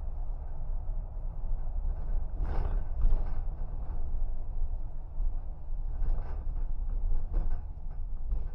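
Low, steady rumble of a car driving, heard from inside the cabin, with a few brief rattles or knocks, the strongest about three seconds in.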